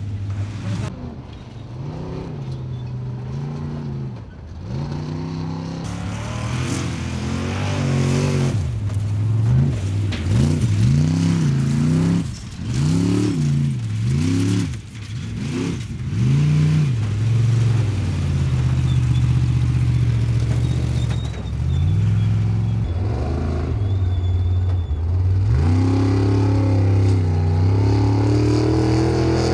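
Off-road racing buggy's engine revving hard, its pitch climbing and dropping again and again as the throttle is worked, then held at high revs for the second half.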